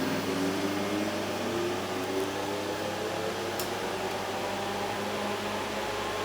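Electric motor on a Fanuc servo/spindle amplifier test rig, whining as it slowly speeds up, its pitch rising steadily over a steady low hum.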